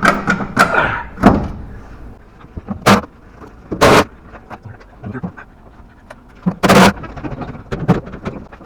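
Short blasts of compressed air from a blow gun, about eight irregular bursts of hiss, blowing debris out of a removed front coil spring.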